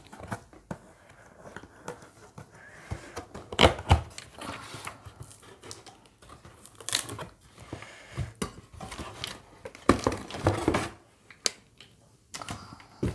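A cardboard box being opened and a plastic-wrapped stainless steel steamer pot lifted out of it: irregular rustling and crinkling of plastic and cardboard, with sharp knocks about four, seven and ten seconds in.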